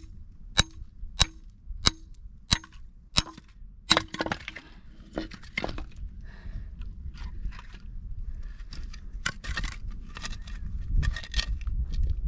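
Chopping into a thick log: about six sharp, evenly spaced blows, roughly two-thirds of a second apart. They are followed by a louder cluster of strikes and then scattered cracking and splintering of wood.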